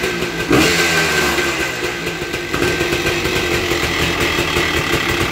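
Honda ATC three-wheeler engine running steadily at idle just after starting.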